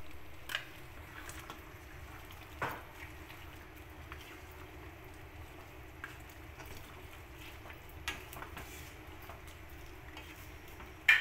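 Thick mutton curry simmering in a pan with a faint steady hiss, stirred with a wooden spatula that scrapes and knocks against the pan a few times, the loudest knock right at the end.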